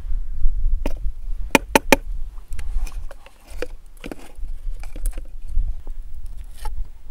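Metal tongs clinking against hot stones and the rim of an aluminium milk can as the stones are loaded into the can for khorkhog: a few sharp clinks, three in quick succession about one and a half seconds in, over a steady low rumble.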